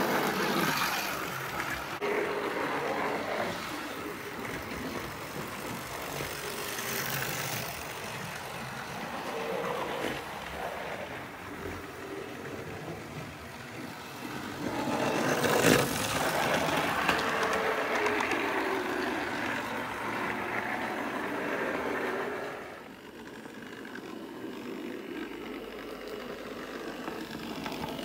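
Hornby Dublo 00 gauge model trains running on the layout's track, a steady mechanical rattle and hum that rises and falls in pitch. It grows louder about halfway through, with a sharp click, then drops quieter near the end.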